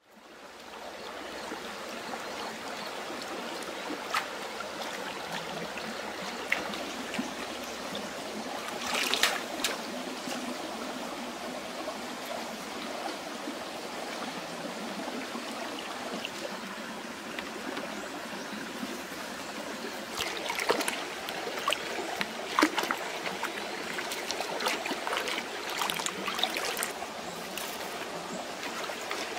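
Stream water running steadily, with scattered splashes and clicks as hands wash chillies in the water; these come in small clusters about nine seconds in and again between about twenty and twenty-seven seconds.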